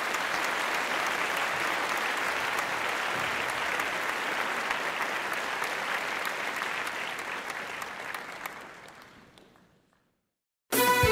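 Applause from a crowd, many hands clapping together, fading away over the last few seconds; music starts abruptly near the end.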